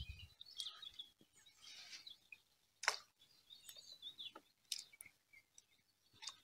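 Faint birdsong: small birds chirping in short, scattered high notes, with a few sharp clicks, the loudest about three seconds in.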